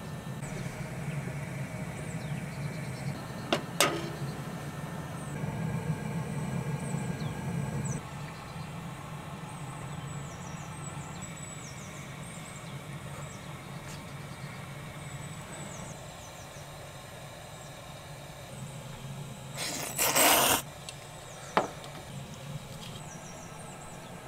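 Camp-kitchen sounds at a portable gas stove: a steady low hum with a couple of sharp metal clinks, and a short loud hiss about twenty seconds in.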